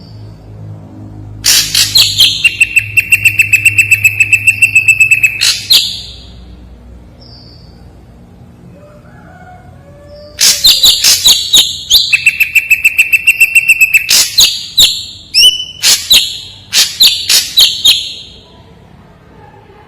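Ashy drongo singing in two bouts, about a second and a half in and again about ten seconds in. Each bout is a rapid run of sharp repeated notes, about six a second, over a held high whistle.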